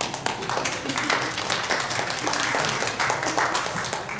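Congregation applauding, many hands clapping together, fading away near the end.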